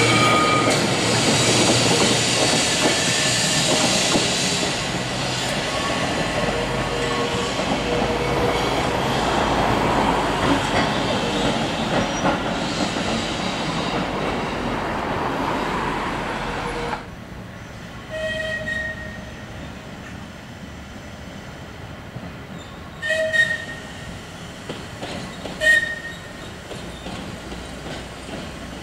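Vintage Manx Electric Railway electric tramcar and open trailer running past on the track, a loud rumble of wheels on rail with squealing tones from the wheels. After a sudden drop about 17 s in, a quieter scene with a few brief high wheel squeals from a tram in the distance.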